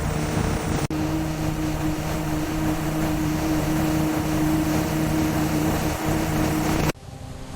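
Combine harvester running at work: a steady mechanical drone with a constant low hum. It breaks off for an instant about a second in, and near the end drops suddenly to a much quieter sound.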